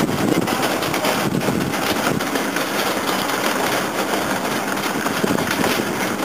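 Wire shopping cart rolling over asphalt, its wheels rumbling and the metal basket rattling steadily.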